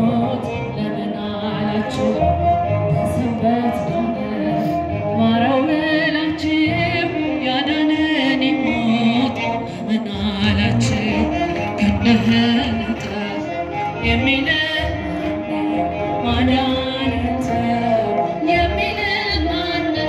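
A woman singing an Ethiopian Orthodox hymn (mezmur) with a wavering, ornamented melody over a low steady beat.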